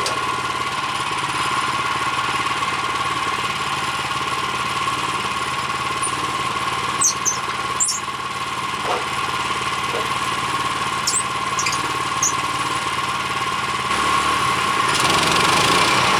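The gas engine of a Woodland Mills HM126 portable bandsaw mill runs steadily, with a few short high squeaks around the middle. The sound grows louder and harsher about fifteen seconds in.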